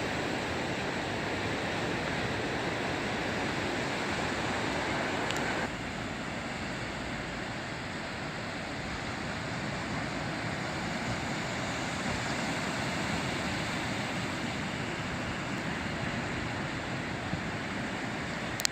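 Ocean surf washing on a sandy beach, a steady rush of noise that drops a little in level about six seconds in. A short click comes near the end.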